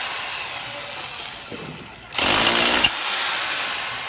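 1010 W CLASIC CLA-5426 rotary hammer drill boring into a thick masonry wall in short bursts: its motor winds down with a falling whine, runs again briefly about two seconds in, then winds down again with a falling whine.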